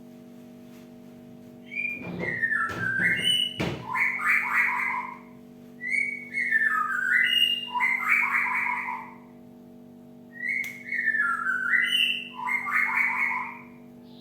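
Cinereous tit (Parus cinereus) calling three times, each phrase a short run of falling whistled notes followed by a buzzy chatter. A few sharp clicks come near the first phrase, over a steady low hum.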